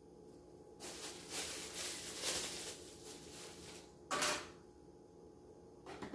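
Takeout fried-chicken meal and its paper packaging being handled: about two seconds of crackly rustling, then a short sharp crackle just after four seconds in and a softer one near the end.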